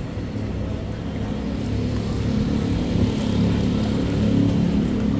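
A motor vehicle engine running close by, a low rumble that grows louder in the second half.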